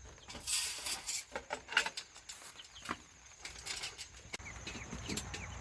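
Scattered knocks and rustling, with a few faint short peeps from young Cornish meat-bird chicks.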